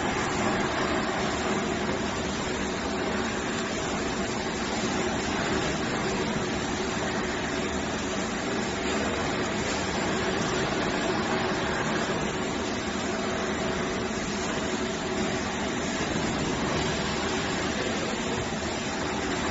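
Automatic towel packing machine running: a steady, even mechanical noise with a faint low hum and no distinct clatter.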